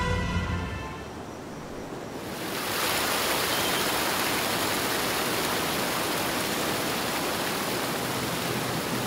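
Background music fades out in the first second. From about two and a half seconds in, a small stream spilling over rocks makes a steady rush of water.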